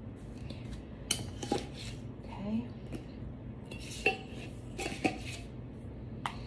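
A few sharp clinks and knocks, spread out, as utensils and containers of craft supplies are handled and set down on a table.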